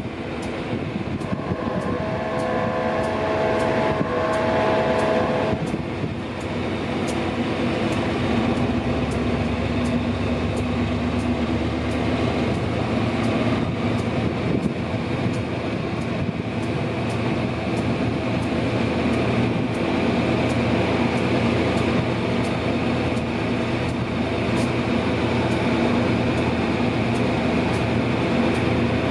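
ALD-class diesel-electric locomotive hauling a passenger train, its engine running steadily, with a multi-tone horn sounding for about three seconds near the start. Wheels click regularly over the rail joints as the train rolls through.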